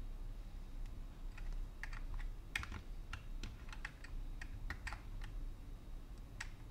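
Computer keyboard keys pressed in scattered, irregular strokes, a few quick clicks at a time with short pauses between.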